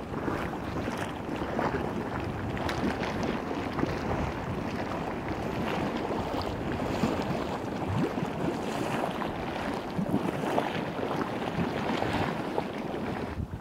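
Salton Sea mud pots bubbling and gurgling: a steady hiss of venting steam and gas, thick with small pops of bursting mud bubbles.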